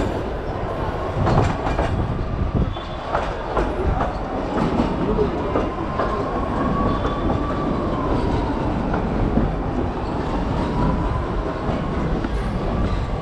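Nilgiri Mountain Railway train running on the rails, a steady rumble with the clickety-clack of wheels over rail joints and a faint drawn-out whine that rises and falls.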